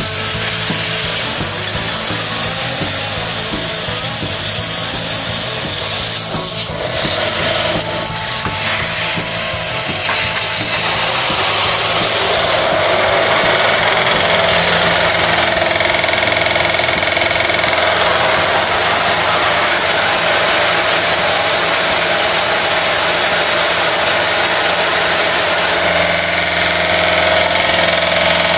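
Vacuum cleaner running steadily with its nozzle in a car chassis leg, sucking out a hoard of hazelnuts. Its pitch steadies into a constant whine about a third of the way in. Radio music is faintly audible at the start.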